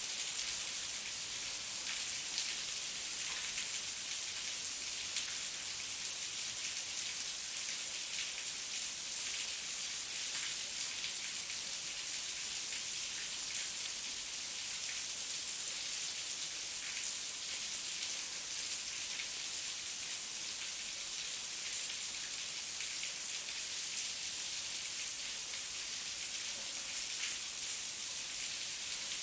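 Heavy rain falling steadily, a dense even hiss of drops pattering on surfaces with no letup.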